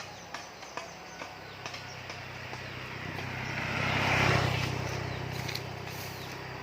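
A motor vehicle passes close by: its engine hum and tyre noise rise to a peak about four seconds in, then fade. A few light ticks sound in the first two seconds.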